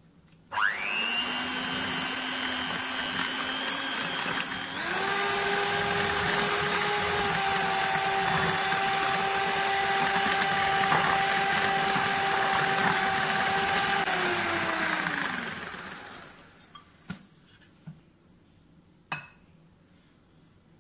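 Electric hand mixer whisking egg-and-sugar batter in a glass bowl: it switches on about half a second in, steps up to a higher speed after about four seconds, runs steadily, then winds down about three quarters of the way through. A few faint clicks follow.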